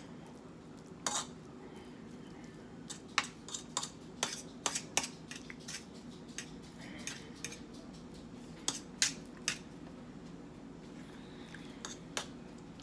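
A fork clicking and scraping against a serving platter as spaghetti is picked up, in scattered clinks with a busier run about three to five seconds in and another around nine seconds.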